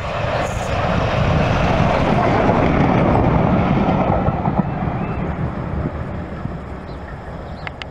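LNER A4 steam locomotive 4464 Bittern and its coaches passing close by at speed: a dense rush of exhaust and wheels on rails, loudest about two to four seconds in, then fading as the train draws away.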